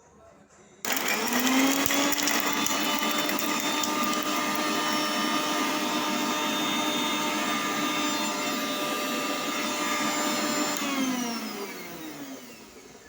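Kitchen mixer grinder switched on just under a second in, its motor spinning up at once to a loud, steady pitch as it dry-grinds karpuravalli (Indian borage) leaves, tulsi and peppercorns without water. After about ten seconds it is switched off, and the pitch falls away as the motor spins down.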